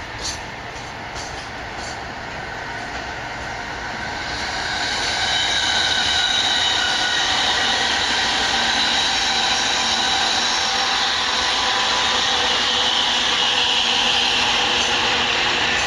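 Freight train running through a rail yard, with a few wheel clicks at first, then louder from about four seconds in, with high-pitched wheel squeal.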